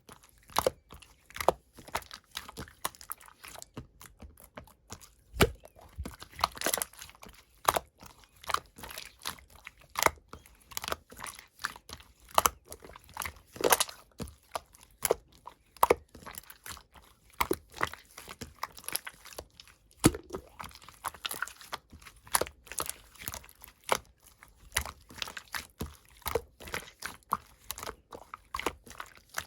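Pink slime being squeezed, stretched and poked by hand, making a dense run of irregular sticky clicks and small pops.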